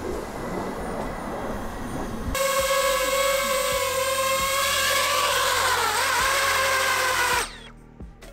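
A steady rushing noise for about two seconds, then the high whine of the DJI FPV drone's propellers as it hovers and settles onto the landing pad. The pitch wavers briefly as it touches down, and the motors cut off abruptly about seven seconds in when it has landed.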